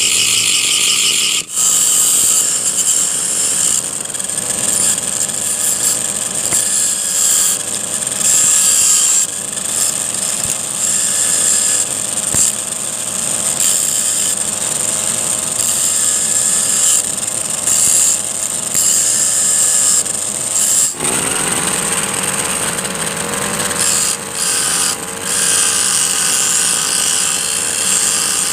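Brush cutter running a disc against a steel file, a continuous loud grinding of metal with a high hiss. It breaks off briefly about a second and a half in, and changes character about two-thirds of the way through.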